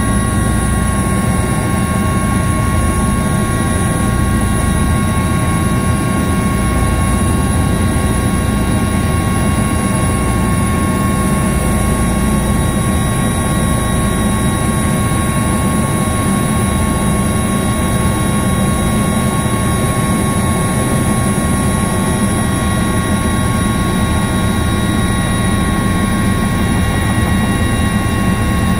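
Cabin noise of an Airbus H155 twin-turbine helicopter in flight, climbing out after takeoff: a loud, steady low drone of rotor and engines with several steady high-pitched whines over it.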